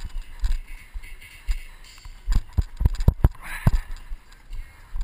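Irregular thumps and knocks of footsteps through wet mud and shallow muddy water, with a handheld action camera jostling as its holder moves. There is a short splashy rush about three and a half seconds in.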